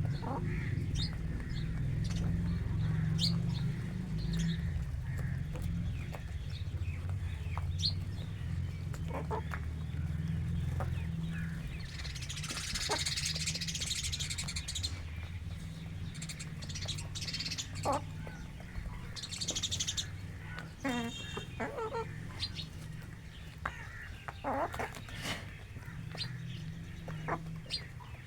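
Free-range rooster and hens feeding, with scattered short chirps and clucks and one longer call a little past two-thirds through, over a steady low rumble.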